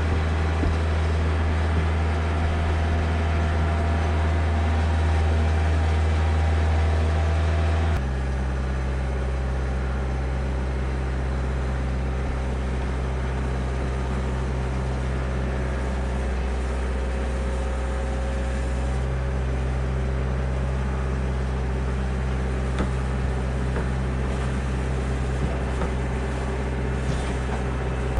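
Diesel engine of a Kioti DK40se compact tractor running steadily, its low hum shifting suddenly to a slightly different note about eight seconds in.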